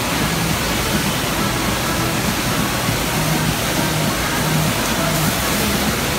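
Steady rushing of water pumped across a FlowRider surf simulator, an even, constant hiss.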